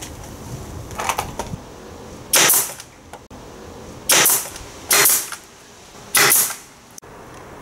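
Pneumatic brad nailer firing four times into wooden panels, each shot a short, loud burst, the middle two about a second apart, with lighter handling clicks before the first.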